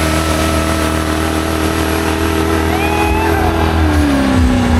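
Off-road Jeep engine held at high revs under load while the tyres dig and throw dirt, a steady pitch that drops lower about four seconds in.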